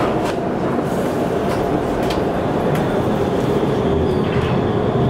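Steady running noise inside a Hess lighTram trolleybus at a stop and setting off, with a few faint clicks.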